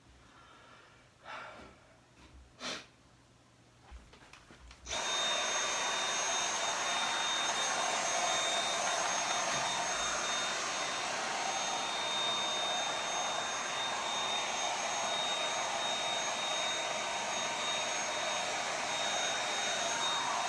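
A few faint knocks, then about five seconds in a household vacuum cleaner switches on and runs steadily with a high whine, cleaning dust from inside the opened computer.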